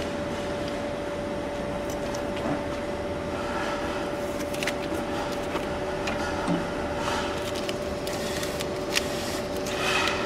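Semi-automatic benchtop bottle labelling machine running with a steady hum, with a few sharp mechanical clicks and the rustle of a bottle being handled in and out of its rollers.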